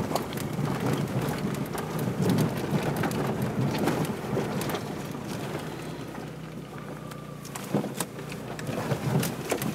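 Peugeot 306 crawling over a rough gravel and stone track: tyres crunching on loose gravel with many small stone clicks and knocks, over the low steady hum of the engine.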